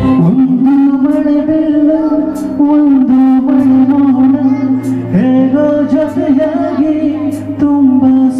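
Song played loud over a PA: a voice singing a bending, held melody over a backing track with percussion hits.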